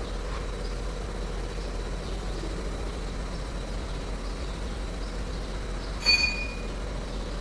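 Steady low hum with background noise, broken about six seconds in by one sharp metallic clank that rings briefly.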